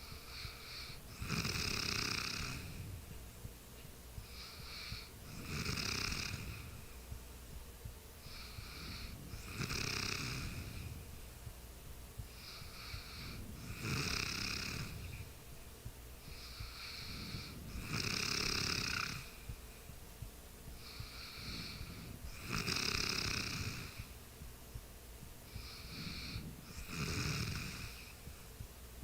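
A sleeping person snoring steadily, one loud snore about every four seconds, each lasting about a second and preceded by a softer breath.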